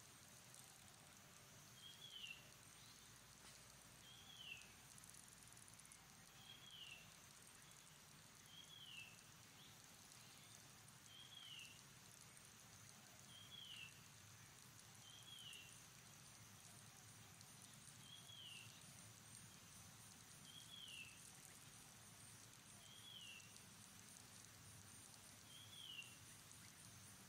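A faint, short, high chirp that falls in pitch, repeating evenly about every two and a half seconds, over a steady high hiss.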